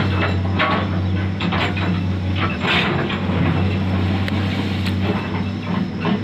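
Komatsu 210 excavator's diesel engine running steadily under load, with scattered knocks and scrapes as its steel bucket presses and tamps loose stones and soil into place.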